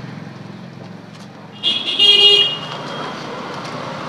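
A vehicle horn toots once, for just under a second, about a third of the way in, over low street background noise.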